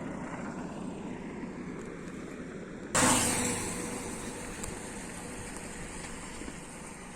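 Road traffic noise with a steady hum, and a sudden loud rush of noise about three seconds in that fades away over the next second or two, like a vehicle passing close by.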